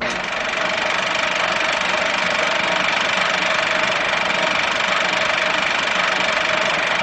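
A steady hissing drone with a few faint held tones on top, unchanging throughout.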